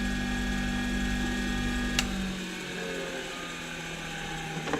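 Bench grinder running on rubber feet, now with less vibration. About two seconds in a click switches it off, and its hum sinks slowly in pitch as the wheels coast down.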